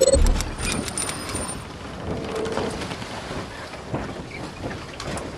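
Logo intro sound effect: a low boom as a rising sweep ends, then a steady crackling, rain-like hiss with faint high chiming tones during the first second or so.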